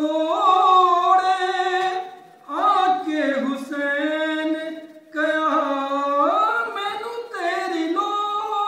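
A man singing devotional verses from a book without accompaniment, in long held melodic notes. There are three phrases, each with a short pause for breath before the next.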